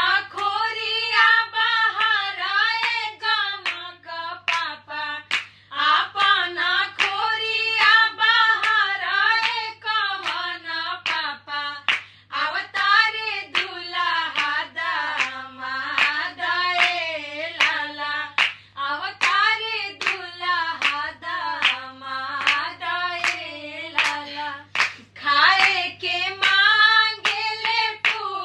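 Three women singing a Bhojpuri wedding folk song (vivah geet, a dwar puja song) together, keeping time with frequent hand claps.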